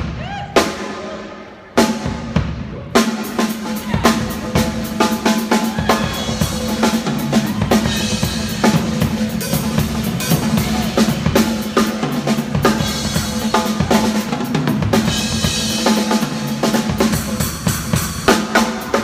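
Rock drum kit played live: a few separate crashes with ringing cymbals, then from about three seconds in a fast, busy beat of bass drum, snare and cymbals.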